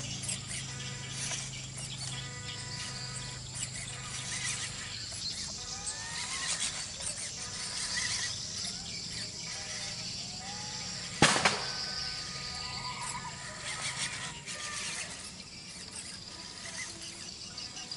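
Small electric motor of a toy RC six-wheel military truck whining steadily as it drives, with one sharp click about eleven seconds in.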